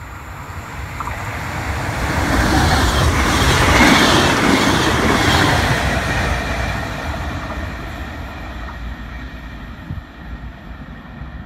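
An electric locomotive hauling a regional passenger train passes at speed, with rumble and wheel-on-rail noise. It builds to its loudest about four seconds in, then fades as the coaches run by and away.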